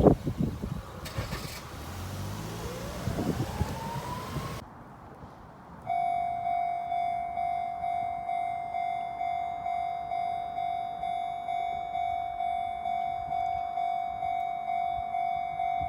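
A Japanese level-crossing warning bell on the Kintetsu Minami-Osaka Line starts ringing steadily about six seconds in, a high electronic clang repeating about twice a second. Before it, a train is heard passing with wheel clatter and a whine that rises in pitch, which stops suddenly and gives way to a short lull.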